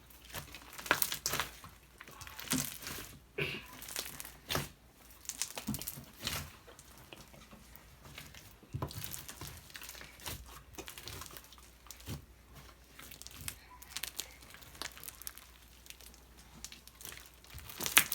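Homemade slime being handled, giving irregular crinkly crackles and sharp clicks, busiest in the first few seconds.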